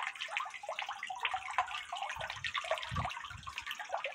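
Water splashing and trickling in a homemade tiered concrete garden fountain, the jet at the top falling from bowl to bowl with a little waterfall sound. A few dull low bumps come in a little past halfway.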